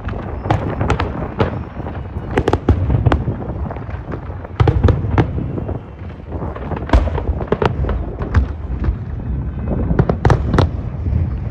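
Fireworks going off: a rapid, irregular string of sharp bangs and crackles over a continuous low rumble, with heavier volleys about five, seven and ten seconds in.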